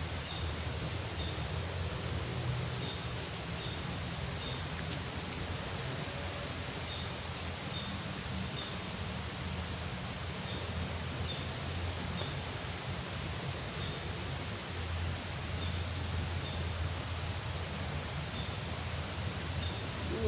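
Steady rush of flowing river water, with short high chirps repeating about once a second over it.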